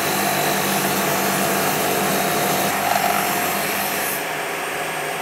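Power saw running steadily as it cuts through an aluminium block, a steady motor hum under the cutting noise.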